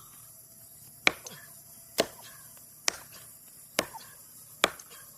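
Double-bit axe chopping into a dead tree trunk: five sharp strikes at a steady pace, a little under one a second.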